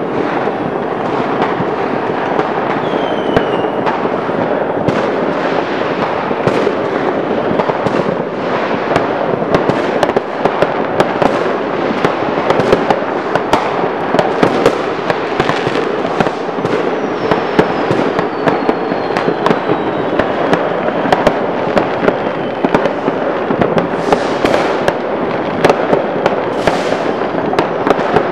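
Fireworks going off all around without a break: a dense, continuous crackle of firecrackers packed with many sharp bangs, and a few faint falling whistles.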